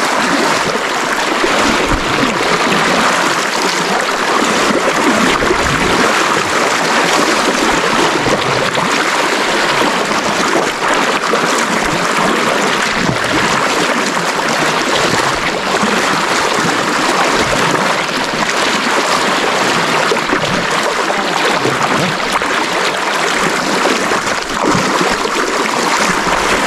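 Fast river current rushing and splashing right at the microphone: a loud, steady wash of water with no pauses.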